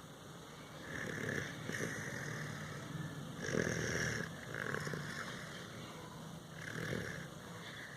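Someone snoring in their sleep: a run of about five snores at uneven intervals, the loudest about halfway through.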